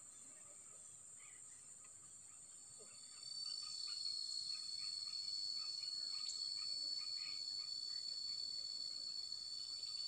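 Forest insects calling in a steady high-pitched drone, with a louder, slightly pulsing insect trill starting about three seconds in and continuing. Faint short chirps come and go underneath.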